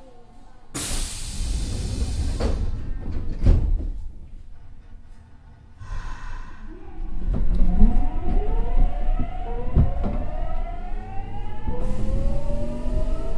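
Nagoya subway 3000 series train: a burst of hiss and a knock as its sliding doors close, then, about seven seconds in, the train pulls away with its traction motors whining in several tones that rise together in pitch as it accelerates.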